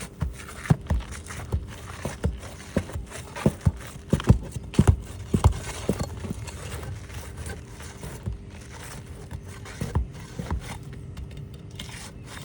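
Steel pry bar knocking and scraping under asphalt shingles as it works them free of their roofing nails: a run of irregular sharp knocks that thins out after about six seconds, with a few more about ten seconds in.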